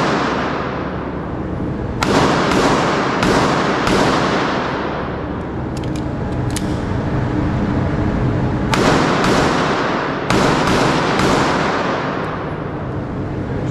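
Pistol gunshots with long echoing tails: four shots in quick succession about two seconds in, then a pause with faint clicks of a retention reload, then about six more shots from about nine seconds in.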